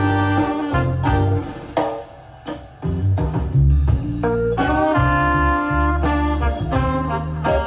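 Instrumental music, with a strong bass line, played back from cassette tape on a Sony TC-KA7ES deck. It dips briefly in loudness about two seconds in.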